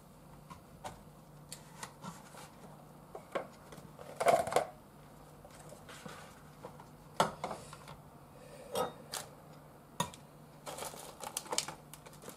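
Kitchen handling noises on a wooden cutting board: scattered light clicks, taps and knocks as things are picked up and set down, with a quick run of clicks near the end as a plastic egg carton is handled. A faint steady low hum underneath.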